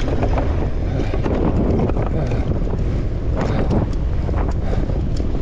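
Wind buffeting the microphone of a camera on a mountain bike descending a rough downhill trail, with tyres running over dirt and rock and the bike clattering sharply over bumps several times.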